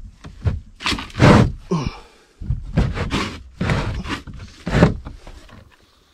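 Wooden cabinet doors being slid along their tracks and opened by hand: a sharp knock, then a series of four or five scrapes.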